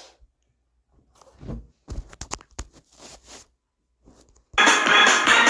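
Scattered faint rustles and clicks, then loud music with a repeating beat starts abruptly about four and a half seconds in.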